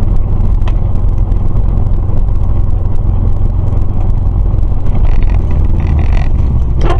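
Car on the move, recorded from inside: a steady, loud, low rumble of engine and road noise.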